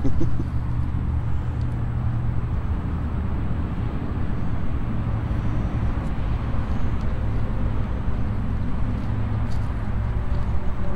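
Steady low rumble of road traffic running past the park, with no break.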